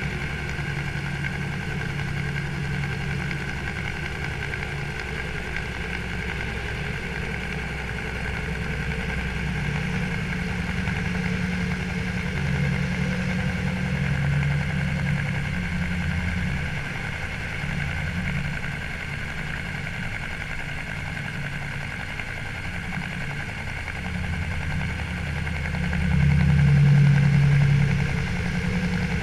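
Helicopter carrying a slung load, heard from the load beneath it: a steady engine and rotor drone with an uneven low rumble, swelling louder near the end.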